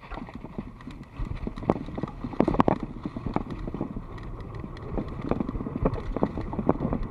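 Mountain bike rattling over a rough dirt trail: irregular knocks and clatter from the bike, loudest about two and a half seconds in, over a low rumble.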